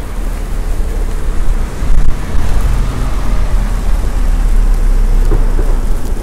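Storm wind buffeting the phone's microphone: a loud, steady low rumble that swells and eases in uneven gusts.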